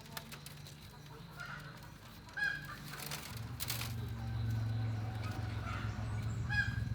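Domestic fowl calling a few times in short, pitched clucks, over a low steady hum that comes up about halfway through.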